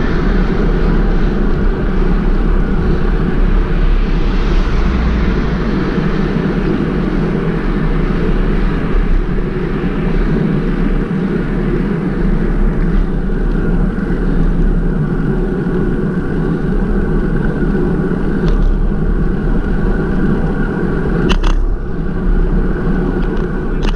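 Steady wind and road noise from riding a bicycle on a road, wind rushing across the microphone with tyre noise underneath, with a couple of short clicks near the end.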